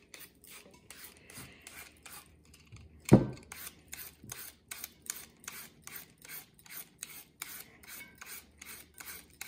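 Julienne peeler shredding a peeled sweet potato into a bowl: quick rhythmic rasping strokes, about four a second, as the blade cuts thin strips. A single loud thump about three seconds in.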